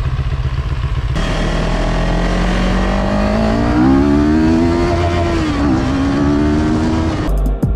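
CF Moto 700 CL-X Heritage's parallel-twin engine idling, then pulling away, its note rising in pitch as the bike accelerates, dipping once and climbing again. Wind rush builds as speed rises.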